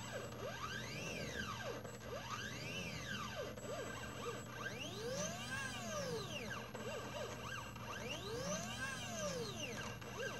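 Stepper motors of a small DIY CNC laser engraver driving the laser head. They whine with several pitches that glide up and then back down as the head speeds up and slows down, in repeated sweeps with two long ones in the second half, over a steady low hum.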